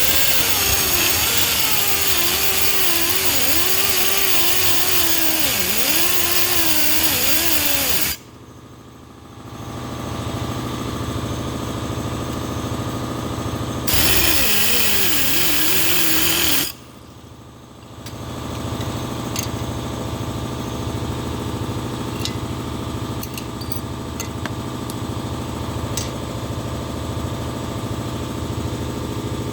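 A cutoff-wheel tool cutting off the protruding steel thread insert in a cast iron engine block's bolt hole, with its pitch dipping and wavering as the wheel bites, in a long cut of about eight seconds and a second short cut about halfway through. Between and after the cuts a steadier mechanical hum runs with a few light clicks.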